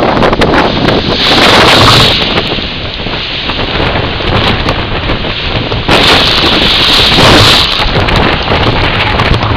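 Strong storm wind buffeting the microphone over the rushing of storm surf, with two louder rushing surges, about a second in and again about six seconds in.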